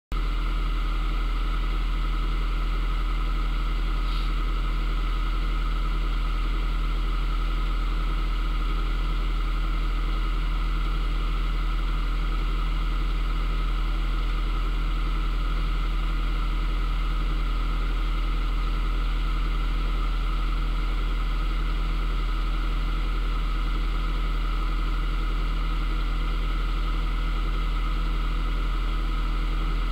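Narrowboat's inboard engine running steadily at low cruising revs while under way: an even, unchanging low drone.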